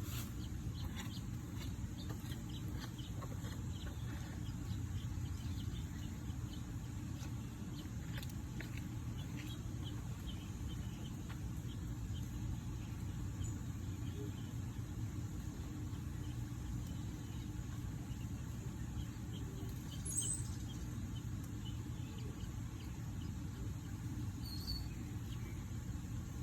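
Steady low outdoor rumble, like distant traffic or wind, with a few faint high bird chirps; one sharper chirp about twenty seconds in.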